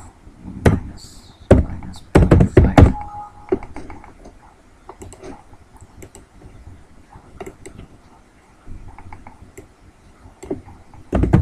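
Computer keyboard typing: a quick cluster of loud key knocks about one to three seconds in, scattered quieter key taps after that, and another loud burst of keystrokes at the end.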